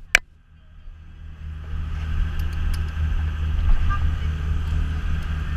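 Parasailing boat's engine running with a steady low hum, and a rushing noise that builds over the first two seconds and then holds. A brief knock sounds just at the start, with a few faint clicks later.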